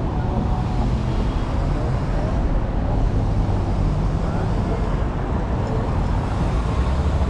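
City street traffic: cars and a pickup truck driving slowly past, a steady low rumble of engines and tyres.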